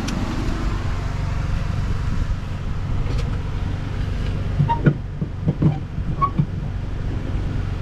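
A steady low hum, with a short run of knocks and light metallic clinks about halfway through from car parts being handled during fuel pump work.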